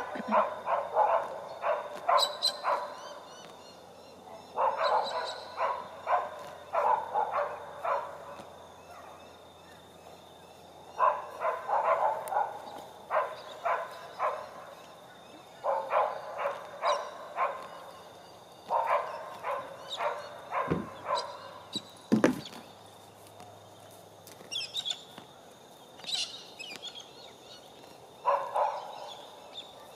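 Animal calls in bouts of rapid, repeated notes, each bout one to two seconds long and coming back every few seconds, with one sharp knock about three-quarters of the way through.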